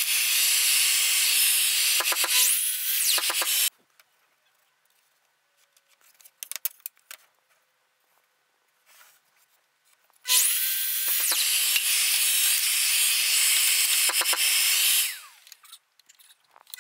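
Bosch mitre saw running and cutting mitres in pine strip, stopping abruptly about four seconds in. A few light knocks of wood being handled follow, then the saw runs again for about five seconds and winds down.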